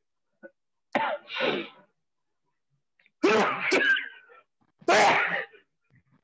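A person's voice in four short, loud bursts with silent gaps between them.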